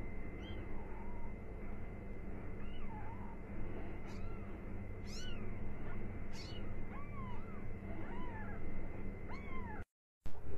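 Young kittens mewing: a string of short, high, rising-and-falling mews, about one or two a second, over a low steady hum.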